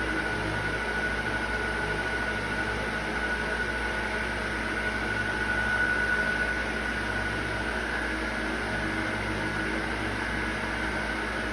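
A steady motor whir with a constant high whine over a low hum, swelling slightly about halfway through.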